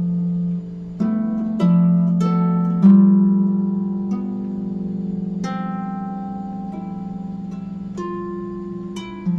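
Slow plucked-string music, harp-like: single notes struck a second or more apart, each ringing on over a held low note, with a longer gap in the middle.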